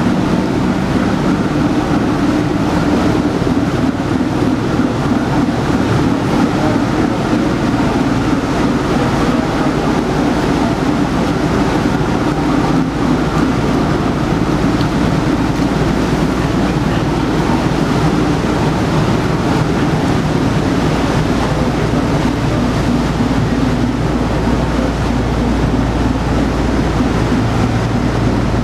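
Steady drone of an inland vessel's engine with churning propeller wash. A deeper rumble comes in about six seconds in and runs on.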